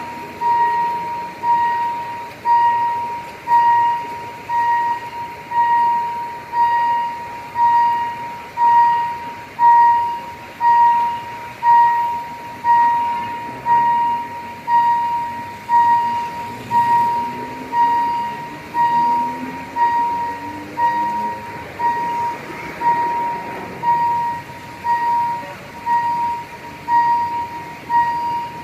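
Level-crossing warning bell ringing steadily, one clear dinging strike a little under once a second, each dying away before the next, while the crossing barriers are down for an approaching train. Road traffic rumbles underneath, with engine notes rising and falling near the middle.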